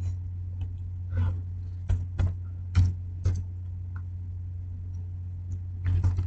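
Computer keyboard keys being typed: about half a dozen separate, unevenly spaced key clicks over a steady low hum.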